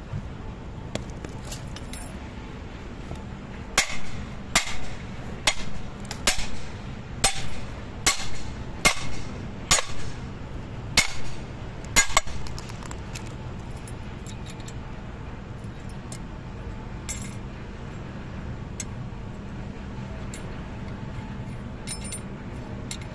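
Club hammer striking the steel link plates and pins of a reclaimer chain: about a dozen ringing metal blows, roughly one a second, over some eight seconds. Later come a few light clinks of steel circlips.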